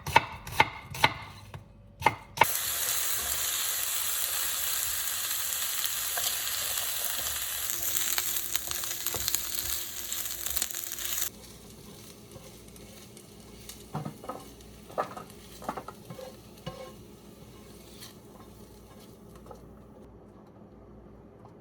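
A few knife chops on a cutting board, then food sizzling in a hot frying pan. The sizzle starts suddenly about two seconds in, holds steady, and cuts off abruptly about eleven seconds in. Faint clinks and knocks of kitchen utensils follow.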